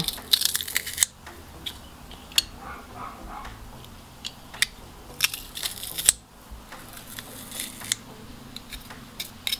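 Metal garlic press crushing garlic cloves: crunching squeezes in several separate stretches, with sharp clicks from the press's metal handles and hopper between them.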